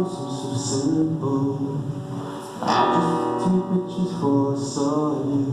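Live acoustic music: a strummed acoustic guitar with a voice singing long, held notes, and a fresh strum about halfway through.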